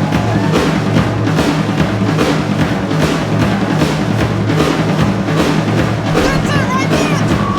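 Background music with a driving drum-kit beat and a steady bass line.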